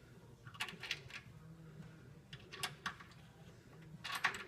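A few short metallic clicks and clinks in small irregular clusters, from the running-board bracket and its bolt hardware being handled and fitted.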